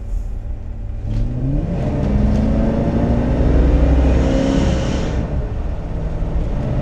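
1969 Cadillac de Ville's 472 cubic-inch V8 accelerating hard: about a second in the revs jump as the automatic gearbox kicks down under full throttle, then climb steadily and fall back near the end.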